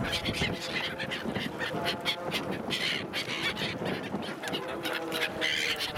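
A flock of gulls calling, many short harsh calls overlapping.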